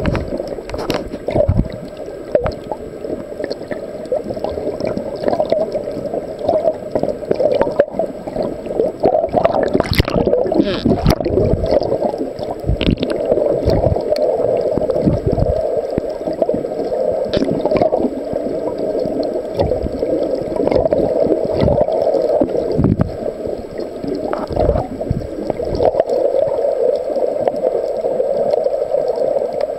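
Muffled water noise around a camera held underwater: steady gurgling and sloshing, with a few sharp knocks.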